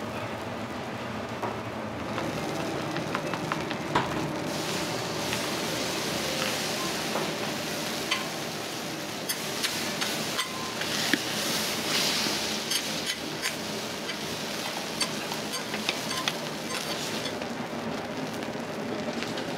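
Modern-yaki (okonomiyaki with fried noodles, topped with pork belly) sizzling on a hot iron griddle. The sizzle grows louder about four seconds in, with sharp clicks and scrapes of metal spatulas on the griddle.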